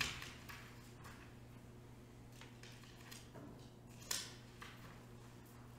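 Paper pages being handled and turned, soft rustles with a brief louder one about four seconds in, over a faint steady low hum.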